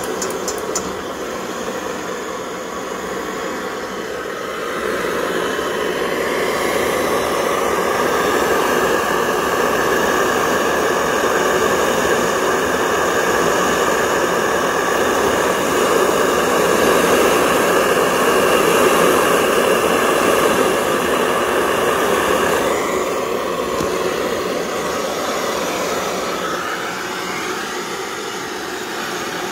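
Pressurized kerosene stove burner, fuelled with waste cooking oil, burning with a steady rushing roar. It grows louder about five seconds in and eases off near the end.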